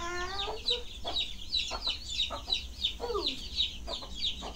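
Chickens calling: short high peeping chirps several times a second, with a lower drawn-out call near the start and a falling call about three seconds in.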